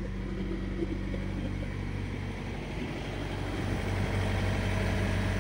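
Semi truck's diesel engine idling steadily, growing a little louder about two-thirds of the way through.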